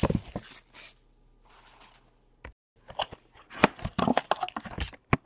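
Sealed trading card box being torn open by hand: plastic wrap crinkling and tearing, with cardboard scraping. Irregular crackles and snaps, busiest in the second half.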